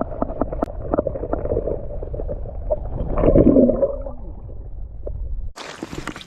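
Muffled water gurgling and sloshing, heard with the microphone under or against the water, with many small knocks and a louder surge about three seconds in. It cuts off near the end to a brief hiss.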